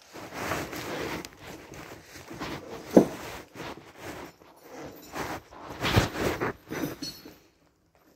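Irregular knocking and scraping of someone climbing on a trailer and working inside a semi-truck sleeper cab, with a sharp knock about three seconds in and a heavier thump about six seconds in.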